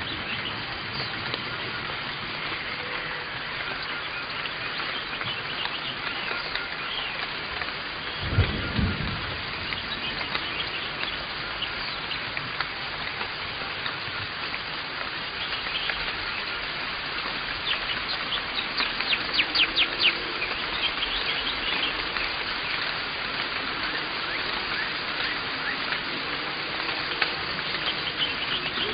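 Outdoor garden ambience on a camcorder microphone: a steady hiss with many small chirps of birds in the trees. A string of about eight louder chirps comes around two-thirds of the way through, and a brief low thump about eight seconds in.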